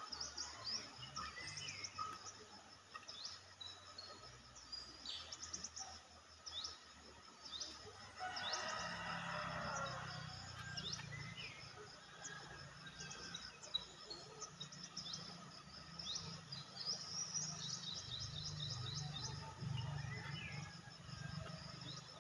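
Wild birds chirping and calling in short, quick high notes, with a louder, denser stretch of calls about eight seconds in, over a low background rumble.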